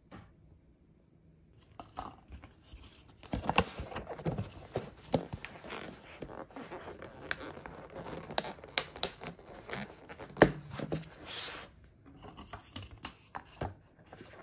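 Clear plastic lids being pressed onto paper bento bowls: the thin plastic crackling and scraping, with many sharp clicks. It starts about two seconds in and gets softer near the end.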